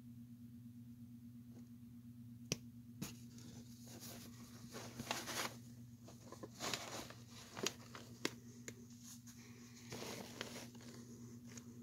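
Handling noise from a rubber gas mask and its metal fittings being turned over by hand: a few sharp clicks and short spells of rustling and scraping, over a faint low steady hum.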